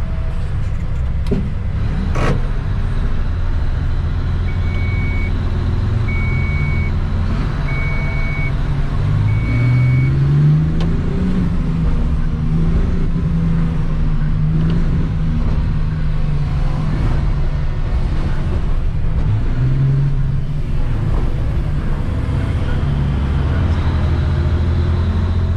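Caterpillar 777E haul truck's diesel engine running, heard from inside the cab, revving up about ten seconds in and again near twenty seconds. Four short high beeps sound evenly spaced in the first ten seconds.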